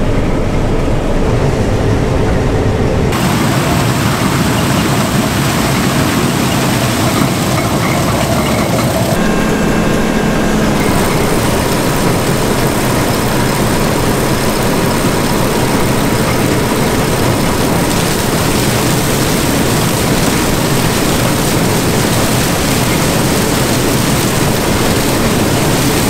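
John Deere 9500 combine at full throttle harvesting corn: a loud, steady mechanical noise from the engine and the corn head pulling in stalks. It gets harsher and brighter about three seconds in.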